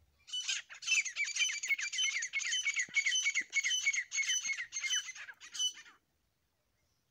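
Grey francolin calling: a rapid run of high, scratchy calls, about three to four a second, that goes on for about five seconds and then stops.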